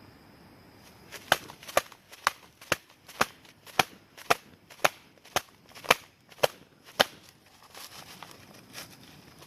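A series of twelve sharp knocks, evenly spaced at about two a second, starting about a second in and stopping about seven seconds in.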